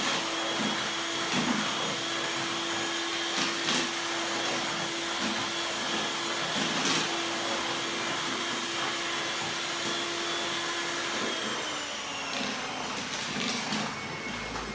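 Electric hand mixer running steadily, its beaters whirring through a runny egg, sugar and milk batter in a plastic bowl. Its steady hum changes and the sound gets a little quieter a few seconds before the end.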